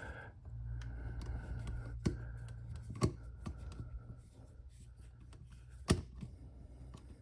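Small clicks and scrapes of a copper wire and screwdriver being worked onto an electrical outlet's screw terminal, with sharper clicks about two, three and six seconds in, over a steady low hum.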